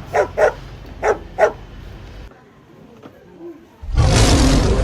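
A dog barking four times in quick succession, short sharp barks; then, about four seconds in, a loud, rough roar of a large animal begins.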